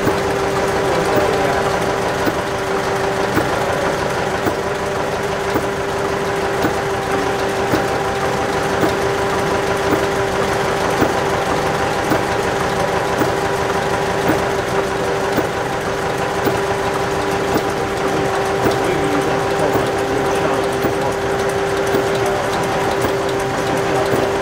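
Tangye horizontal stationary engine running steadily, its flywheel turning. A regular beat of mechanical knocks and clicks rides over a steady hum.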